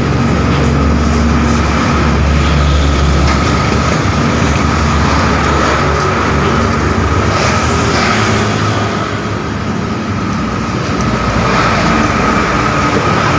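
An engine running steadily, with a low hum and a steady high tone through it.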